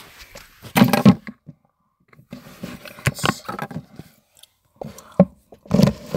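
Handling noise from a phone being picked up and moved around to film: the microphone rubbing and scraping against hands and clothing, with a few knocks, loudest about a second in and again near the end.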